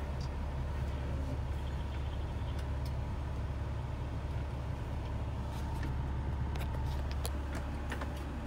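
Semi truck's diesel engine running steadily at low speed, heard from inside the cab, with a few light clicks in the last few seconds and a sudden sharp sound right at the end.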